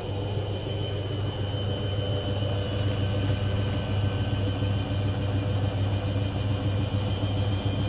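Hoover VisionDynamic washing machine's motor and drum running steadily in a spin cycle, a low hum with a faint high-pitched whine, building slightly in the first few seconds. The load is unbalanced and held back by a suds lock.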